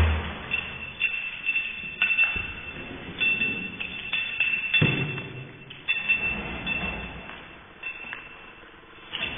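Doberman snapping its jaws shut several times, giving short sharp clacks about a second apart, and sneezing.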